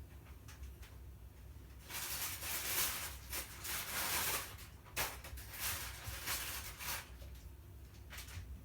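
Cats scuffling as they play-wrestle: a few seconds of rustling and scrabbling, with a sharp knock about five seconds in.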